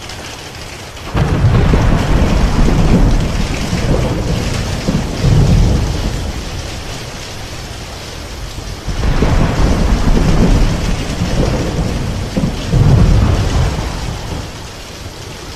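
Heavy rain with hail in a storm, a steady hiss, overlaid by deep rumbling surges that swell about a second in and again about nine seconds in.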